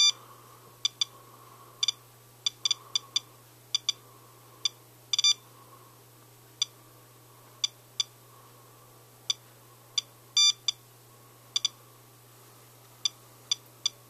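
SOEKS radiation detector beeping at irregular, random intervals, about two a second and sometimes in quick pairs. Each beep is a detected particle, with the meter reading about 0.54 microsieverts per hour from a rain sample, almost four times background.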